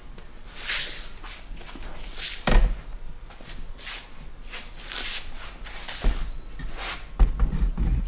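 Footsteps scuffing on a concrete floor, a short hissy scuff every half second or so, with a few dull thumps, the loudest about two and a half seconds in.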